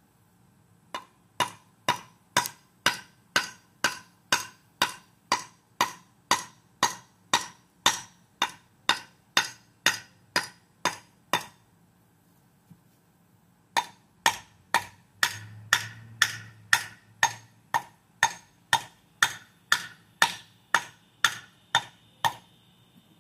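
Brick hammer striking an 8-inch concrete block to split it: sharp ringing taps about two a second, in two long runs with a short pause in the middle.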